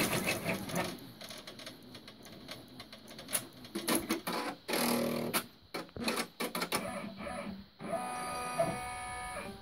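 Brother PR1050X multi-needle embroidery machine: its rapid stitching stops right at the start, followed by scattered mechanical clicks and short clatters. Steady background music comes in near the end.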